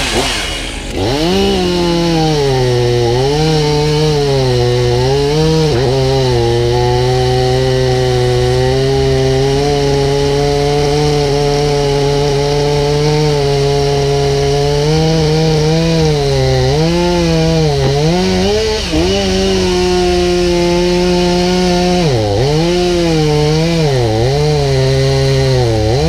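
Two-stroke chainsaw revving up about a second in, then cutting into the base of a Monterey cypress trunk. Its engine pitch dips and recovers again and again as the chain loads in the cut.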